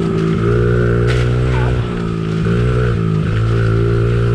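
Pit bike engine running under throttle while being ridden on a dirt track. Its pitch dips briefly three times, about every second and a half.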